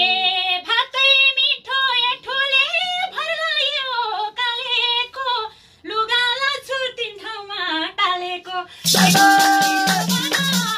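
A woman singing a dohori folk verse alone, her voice sliding up and down through the phrases. About nine seconds in, the madal drum and a jingling hand shaker come in with a quick steady beat.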